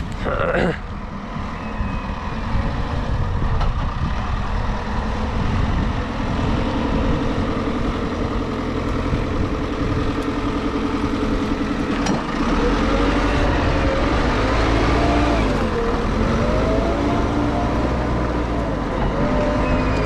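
Backhoe loader's diesel engine running steadily, then louder from about twelve seconds in, revving up and down in slow waves as it works the hydraulics digging a trench.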